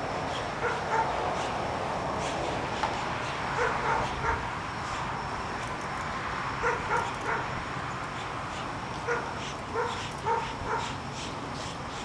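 A dog barking in short yaps, about a dozen in irregular clusters of two or three, over a steady hiss.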